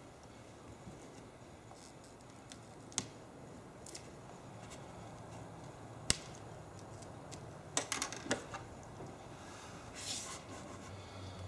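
Scattered small clicks and taps of pry tools working the cracked glass digitizer loose from an iPad 2's frame, the sharpest about six seconds in and a quick run of clicks near eight seconds, over a faint steady low hum.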